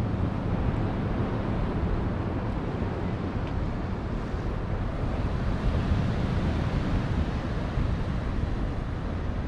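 Steady wind buffeting the camera microphone in a rumbling rush, over the wash of ocean surf breaking below.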